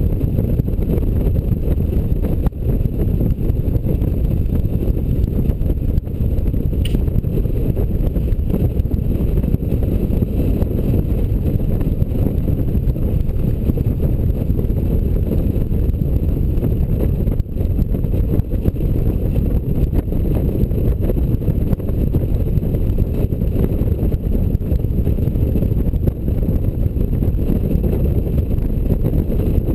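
Steady low wind rush and road rumble on the camera of a Honda Gold Wing motorcycle cruising at speed.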